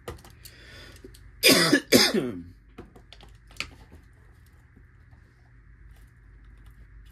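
A man coughs twice in quick succession, about a second and a half in, with a falling voiced tail like throat clearing. A few faint clicks come before and after.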